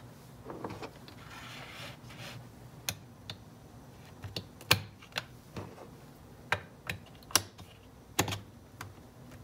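Irregular small clicks and clacks of 18650 lithium-ion cells being dropped and pressed into their battery holder, the loudest about halfway through.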